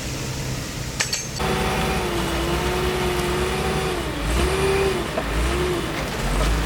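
Heavy construction machine's diesel engine working, its whine wavering up and down in pitch over a low rumble that swells twice in the second half, after a short click about a second in.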